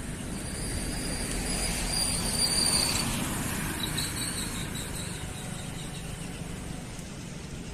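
A motor vehicle passing close by: a steady rumble that swells about two to three seconds in and then fades, with a thin high squeal on top.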